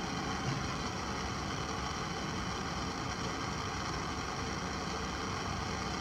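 Propane hand torch burning steadily under a paper cup of water, a constant even hiss.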